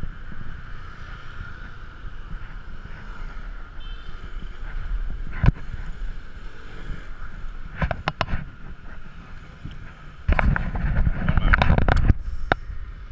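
Scooter engine running, muffled through a waterproof camera case, with a few sharp knocks partway through. From about ten seconds in, about two seconds of loud rubbing and knocking as the camera in its case is handled.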